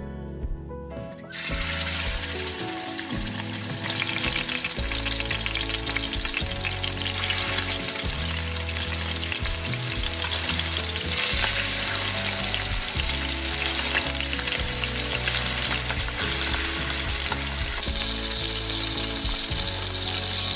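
Food frying in hot oil in a frying pan, a steady sizzle that starts about a second in and gets louder a few seconds later.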